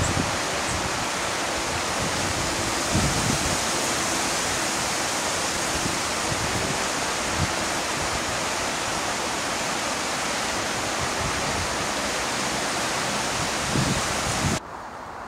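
Shallow, rocky river running over stones in a steady rush of water. It drops away suddenly near the end.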